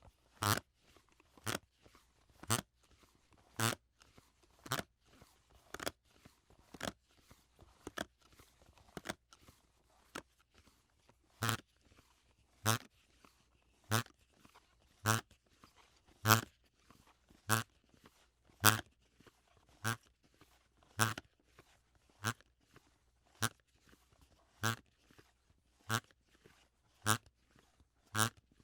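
Sliding DVD box set making short fart-like sounds as it slides, one about every second, over and over.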